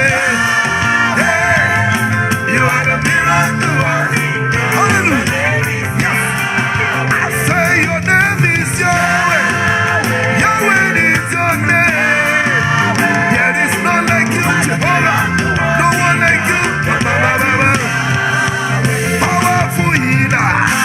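Live praise-and-worship music: a band playing steadily with many voices singing along.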